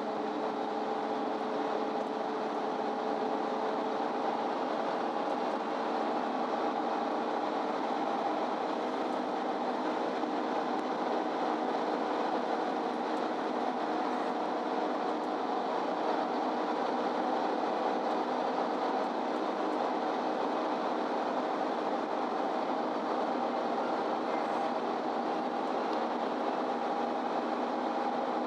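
MAN Lion's City Ü bus heard from inside the cabin while driving at a steady speed: an even hum of engine and rolling noise with a constant whine that holds pitch throughout.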